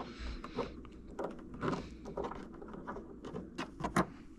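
Scattered light clicks, knocks and rustles of hands working plastic pop clips and fasteners loose on a car's tail light trim, with a sharper click about four seconds in.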